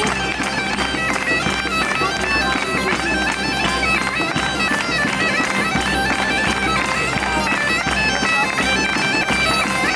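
Bagpipes playing a melody that moves in steps over a steady drone, with the rest of a medieval-style folk band.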